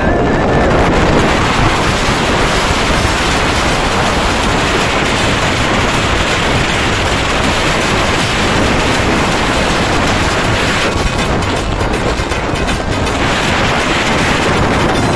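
Wind rushing over a phone microphone on a moving motorcycle, mixed with engine and tyre noise: a loud, steady rush that eases slightly for a couple of seconds about eleven seconds in.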